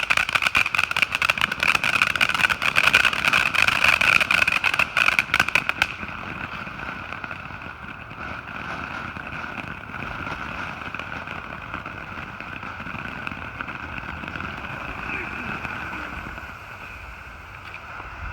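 A lit ground firework crackling rapidly and densely for about six seconds, then stopping. A steady high drone carries on underneath throughout.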